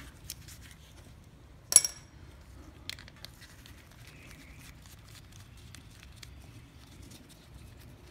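Small metal parts and tools being handled beside a metal tray during carburetor teardown: one sharp metallic clink just under two seconds in, a lighter click about a second later, and faint rustling and ticks between.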